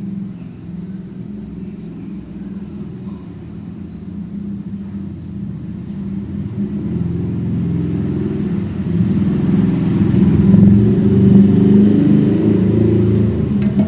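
A steady low engine-like rumble, as from a motor vehicle running nearby, growing louder over the second half.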